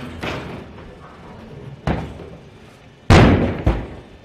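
Sudden heavy thuds: a sharp knock about two seconds in, then a louder bang just after three seconds with another thud half a second later.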